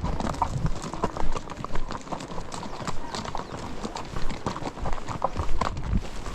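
Horses' hooves clip-clopping in an irregular run of hoof strikes as a group of riders walks their horses along a trail.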